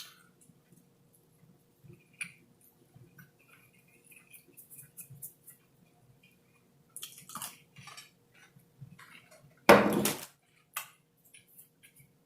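Scattered small clicks and handling noises of eating-table things, such as dishes, cutlery and food packaging, being moved. About ten seconds in there is one short, loud clatter.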